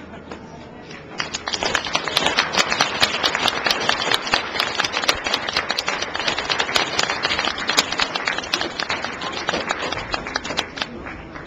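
Audience applauding, a dense patter of hand claps that starts about a second in and dies away near the end.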